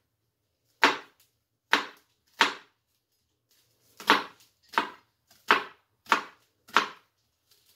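Kitchen knife chopping an onion: eight separate sharp chops, unevenly spaced, with a pause of about a second and a half after the third.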